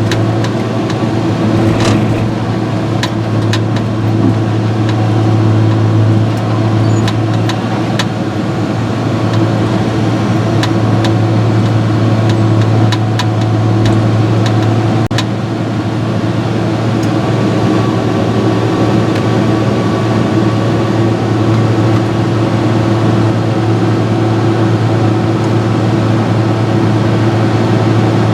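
John Deere 6068 inline-six diesel engine of a Fabtek harvester running steadily at operating temperature, with scattered light clicks and ticks.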